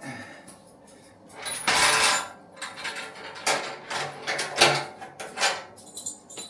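Clatter of small fittings and tools being handled and knocked together while parts are fitted to a generator. There is a louder scraping rush about two seconds in, then a string of short knocks and clicks.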